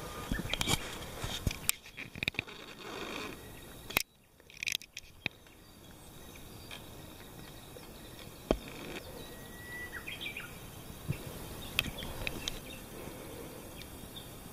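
Outdoor ambience with scattered clicks and knocks, broken by a brief near-silent gap about four seconds in, and a short whistled bird note that dips in pitch about ten seconds in.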